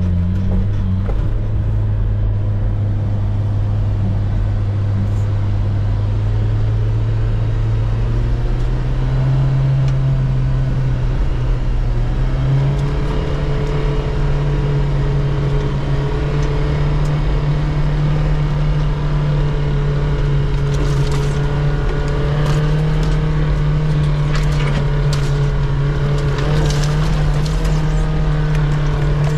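Suzuki 4x4's engine running under load as it climbs, heard from inside the cab. The revs rise about ten seconds in and then hold steady and higher. Scattered knocks and rattles come over it in the last third.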